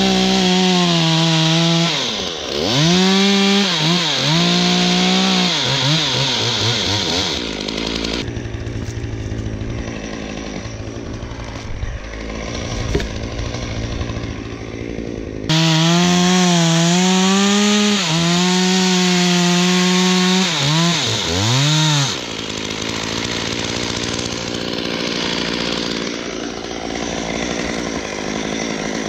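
Gas chainsaw cutting through a tree trunk at full throttle, its pitch dipping and recovering as the chain loads in the wood. It drops to idle about eight seconds in, runs at full throttle again with more dips from about sixteen to twenty-two seconds, then falls back to idle.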